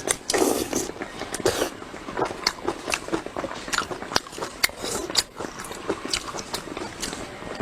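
Close-miked eating: bites and chewing, with many sharp clicks and a couple of louder bites near the start.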